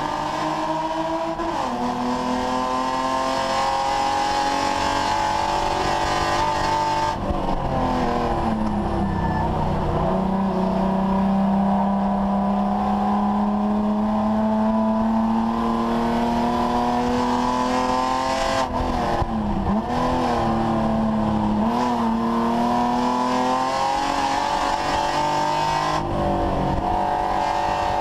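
A BMW 3 Series race car's engine heard from inside the stripped cabin under hard driving. Its pitch rises and falls, with a few sharp drops and one long, slow climb through the middle.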